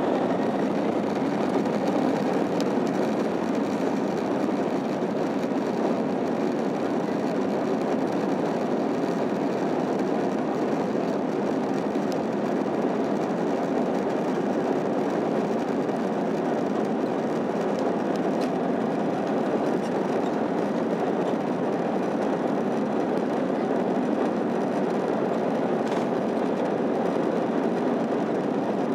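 Inside the cabin of an Airbus A321-211 during the takeoff roll: the CFM56 engines at takeoff thrust make a loud, steady rushing roar, along with the rumble of the wheels on the runway.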